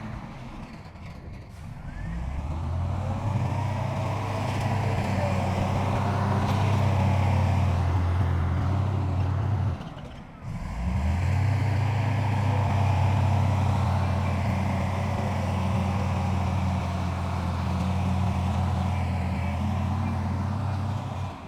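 Heavy diesel engine of earth-moving machinery running steadily under load, with a short drop-out about ten seconds in.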